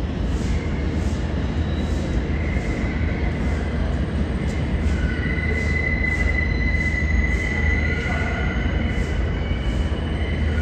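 R142 subway train running on the rails with a steady low rumble. Its wheels squeal in thin high steady tones, faint at first and loud from about halfway through.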